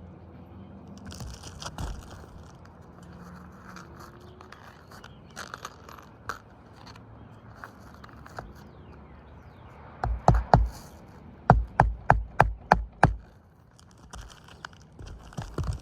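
Hammer strikes during a shingle repair: three blows, then a quick run of about seven at roughly four a second. Before them comes soft scraping and rustling of shingles being worked.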